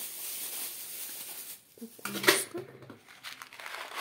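Plastic feed bags crinkling and rustling as hands handle them, with a sharp click a little over two seconds in.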